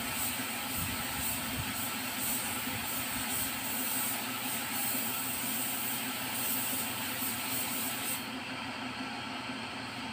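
Gravity-feed compressed-air spray gun hissing as it sprays clear topcoat onto a bumper, cutting off sharply about eight seconds in. A steady lower background noise runs on underneath.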